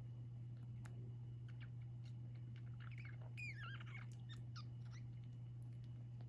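A newborn kitten giving one short, high, wavering mew a little past the middle, amid a few faint light taps, over a steady low hum.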